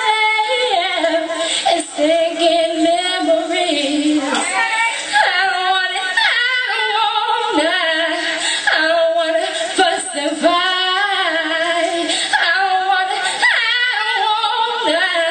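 A woman singing into a microphone, long melodic lines that bend and waver in pitch, with music underneath.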